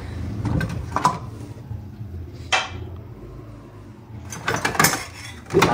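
Steel pots, lids and kitchen utensils clinking and knocking together as they are handled in a cardboard carton: a few separate clinks, then a quicker run of them near the end.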